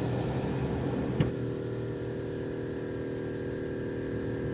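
A steady mechanical hum made of several held tones, with a single sharp click about a second in.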